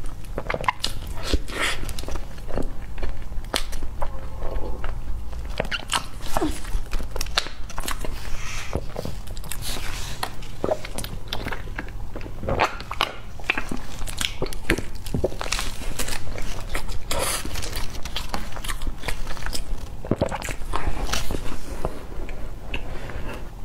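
Close-miked eating sounds: a person biting into and chewing a soft pastry, many small wet mouth clicks and smacks. Partway through come sips through a straw from a drink carton.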